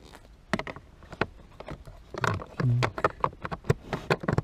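Hard plastic clicking and knocking as a black plastic cabin-filter housing cover is handled and offered up into place, a string of sharp separate clicks with a brief hum of voice about halfway through.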